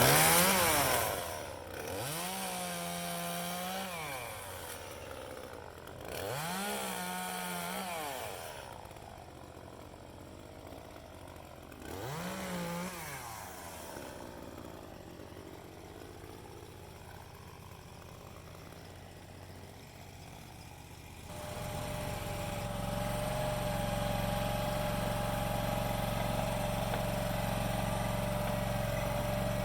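Chainsaw revved up and let back down four times, each rev rising, holding for a moment and falling away. About two-thirds of the way through a steady engine starts running with a high whine, and keeps going to the end.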